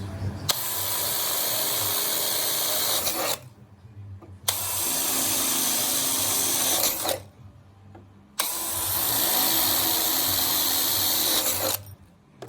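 Power drill running in three bursts of about three seconds each, with short pauses between them, drilling holes for sheet-metal screws.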